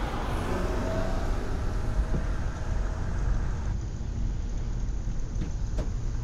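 Car engine idling at the kerb amid steady traffic noise, with a couple of faint clicks near the end as a car door is opened.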